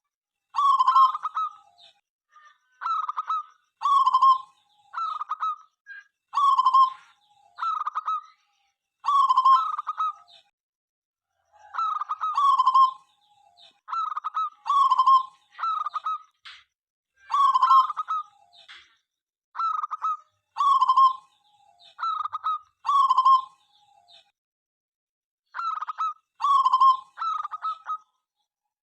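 Local zebra dove (perkutut) cooing: short rolling, pulsed coo phrases repeated about once a second, with one longer pause near the end.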